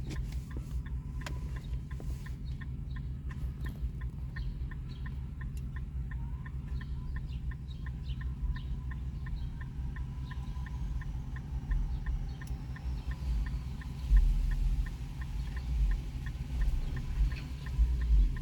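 Car's hazard-light flasher ticking in a steady rhythm, about three ticks a second, over a low steady hum. Some low thumps come in the second half.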